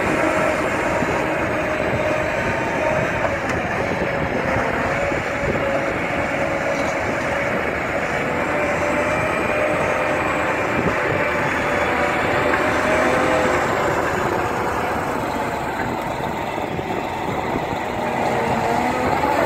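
ROPA self-propelled sugar beet harvester running at work in the field: its engine and lifting and cleaning machinery make a steady, loud mechanical din, with a faint whine that wavers slowly in pitch.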